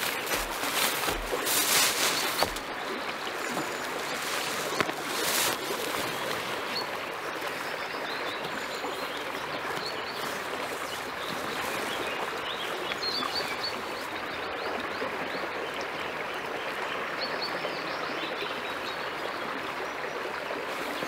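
Steady rush of river water flowing past, with scattered short bird chirps over it. Louder rustling in the first couple of seconds and again about five seconds in.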